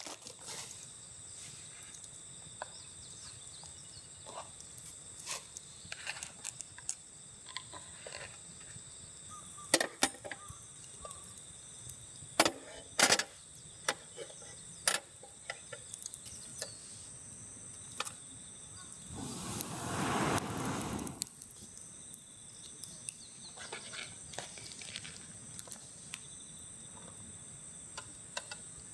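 Insects singing steadily in two high pitches, with scattered sharp clicks and knocks from camp gear being handled. About twenty seconds in, a louder rushing noise swells and fades over roughly two seconds.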